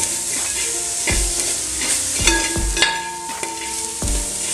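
Metal spatula stirring and scraping frying onion-and-tomato masala around a large metal pot over a steady sizzle. The spatula knocks against the pot about four times, roughly once a second, some knocks ringing briefly.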